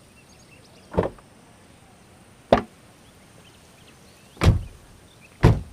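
Four sharp thuds one to two seconds apart, the last two heavier, with faint bird chirps behind.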